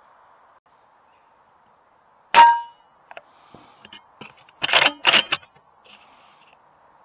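A sharp air rifle shot with a metallic clang that rings briefly, about two and a half seconds in. About two seconds later come two short rattling noises close together.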